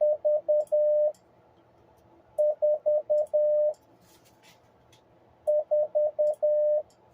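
Morse code sidetone from an Icom IC-7300 transceiver keyed with an iambic paddle: the number 4, four short dits and one long dah, sent three times at 10 words a minute as one steady beeping tone.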